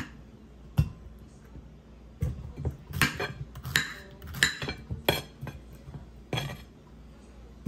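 Kitchen knife cutting ripe pineapple flesh and knocking against a ceramic plate: about ten sharp clinks and knocks at an irregular pace. Pineapple chunks are dropped into a glass blender jar.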